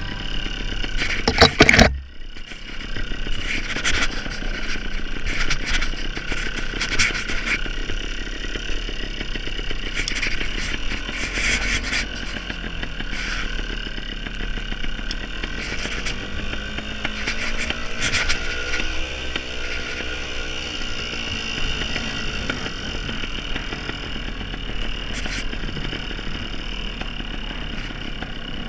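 Dirt bike engine running at low revs on a rough, rocky descent, with repeated knocks and scrapes from the bike over rocks. There is a short loud burst near the start, and the engine note rises and falls once around the middle.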